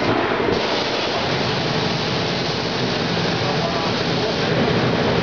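Sankosha DF-550U garment finisher running with a steady, loud rush of air and hiss, which gets fuller and brighter suddenly about half a second in.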